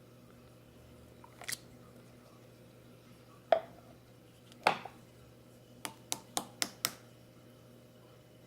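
A few sharp clicks and taps of small objects being handled. Two louder knocks come about a second apart, then a run of five quick clicks, about four a second, over a faint steady hum.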